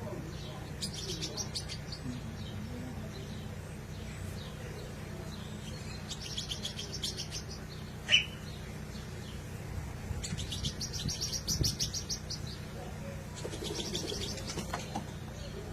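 Bird chirping in four bursts of rapid, high chattering notes. A sharp click about eight seconds in is the loudest sound, under a steady low hum.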